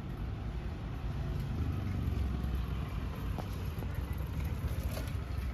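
Low, steady rumble of road traffic, swelling a little around two seconds in.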